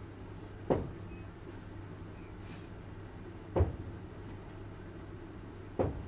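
Inside a moving train carriage: a steady low running hum, broken by three sharp knocks of the carriage, one under a second in, one just past the middle and one near the end.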